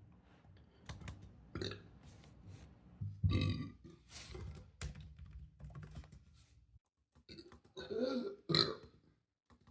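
A person burping several times. There is a loud burp about three seconds in and a cluster of burps near the end, with scattered clicks in between.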